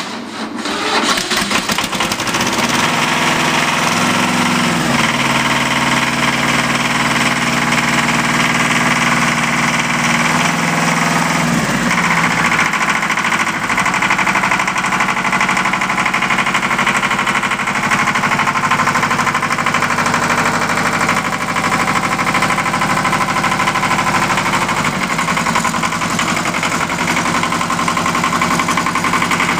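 Ford compact tractor-loader's diesel engine starting cold and then running with an engine clatter. Its speed rises about four seconds in, drops back around twelve seconds, then holds steady.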